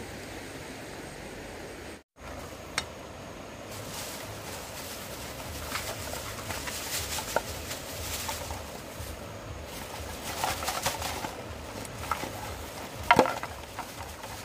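Steady outdoor noise, the even rush of a stream, with scattered sharp clicks and knocks; the loudest knock comes near the end. The sound breaks off for a moment about two seconds in.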